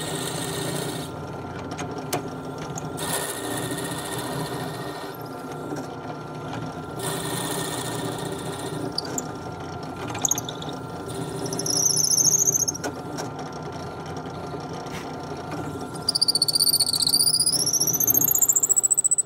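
Drill press running steadily while a drill bit bores into a block of bloodwood, with cutting noise coming and going as the bit is fed in and backed out. Short high squeals come from the bit in the wood, and near the end a louder squeal that dips and rises again.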